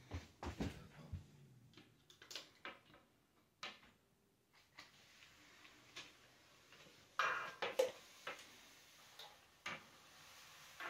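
Irregular light clicks and knocks of a hooked pole working the bottom bar of an IKEA Tretur skylight roller blind, with a louder cluster of rattling knocks about seven seconds in.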